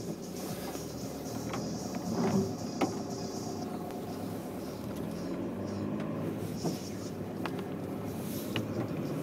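Car driving slowly through wet slush, heard from inside the cabin: steady engine and tyre rumble, with scattered clicks and a sharper knock just under three seconds in.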